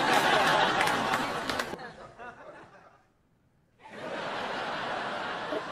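Studio audience laughing after a punchline, fading out about two seconds in. A short dead-silent gap follows, then a quieter, steady crowd noise for the rest.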